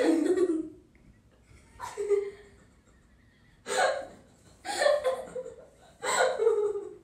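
Girls giggling in five short bursts with quiet gaps between them.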